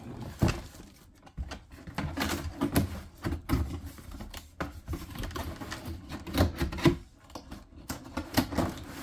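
Unboxing handling noise: irregular clicks, knocks and rustles as the humidifier's parts and packaging are handled and set down.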